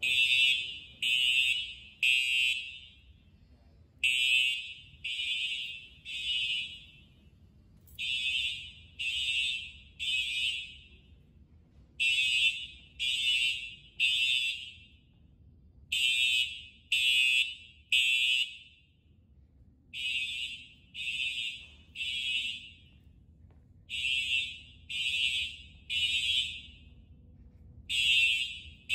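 Simplex 4903-9417 TrueAlert horn strobes sounding a fire alarm evacuation signal in the temporal-three pattern: three short horn blasts, then a pause, repeating every four seconds.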